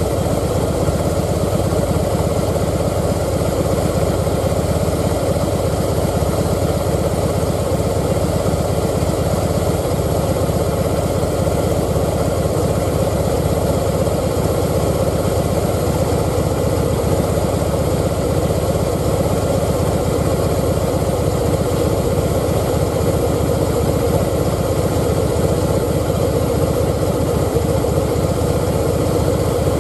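Harley-Davidson Breakout's V-twin idling steadily while its idle speed is being lowered from about 1,000 rpm toward 900 rpm.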